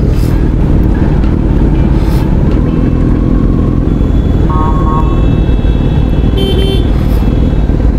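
Motorcycle running at road speed, with heavy wind rush on the helmet-mounted microphone, likely a Kawasaki Z900's inline-four. Short vehicle-horn toots sound about halfway through and again near the end.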